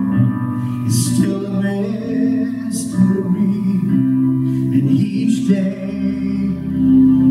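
Male voice singing a slow worship song into a microphone over guitar accompaniment, with long held notes.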